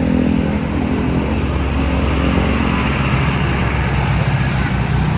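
A bus engine running loud and steady, with a low hum that shifts slightly in pitch partway through.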